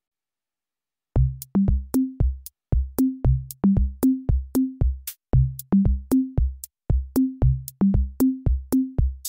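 Background music: an electronic drum-machine beat with a bass line, about three beats a second, starting about a second in after silence.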